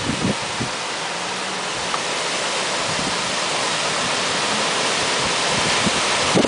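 Storm wind rushing steadily through the trees, slowly growing louder, with short gusts thumping on the microphone.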